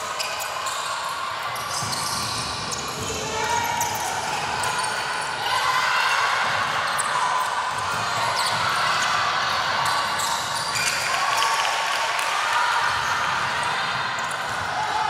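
Basketball game in play: the ball bouncing on the court amid many overlapping voices of players and spectators calling and shouting, steadily throughout.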